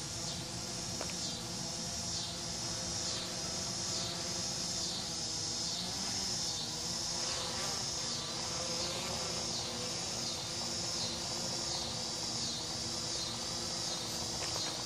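Insects calling in an even pulsing rhythm, a little under two pulses a second, with a faint steady hum underneath.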